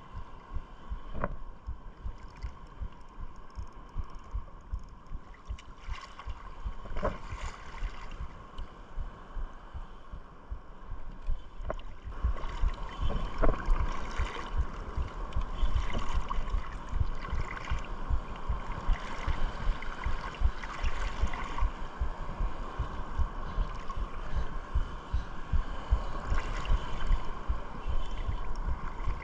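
Shallow sea water sloshing and lapping around a wading angler, with wind buffeting the microphone in uneven low thuds. A faint steady whine runs underneath and grows louder about twelve seconds in.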